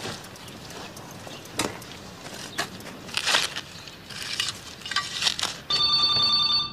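Irregular scrapes and crunches of someone digging in loose, freshly turned earth. Near the end an electronic telephone starts ringing, a steady ring lasting about a second.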